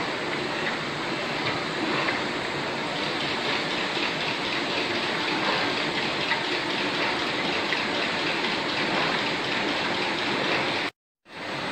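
Printing-factory machinery for cutting and rewinding sticker and label stock, running as a steady, dense whir and hiss.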